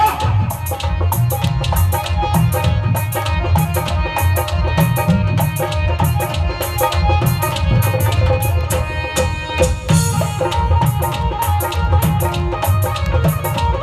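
Instrumental break in a folk song: a steady drum beat, about two or three strokes a second, under held melody notes, with no singing.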